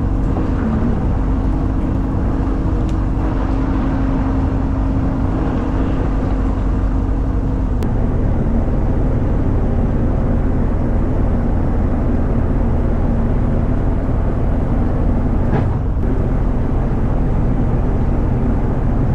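Fishing boat's engine idling with a steady hum over wind and water noise; the hum's tone changes about eight seconds in.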